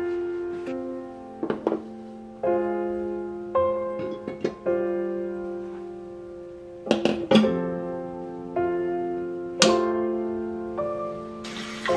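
Gentle solo piano music with sustained chords, broken by a few light knocks. Near the end a tap starts running water.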